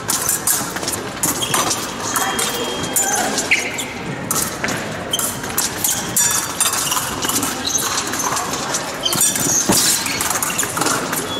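Fencers' footwork during an épée bout: irregular quick stamps, shuffles and knocks of shoes on the piste, with voices in the background.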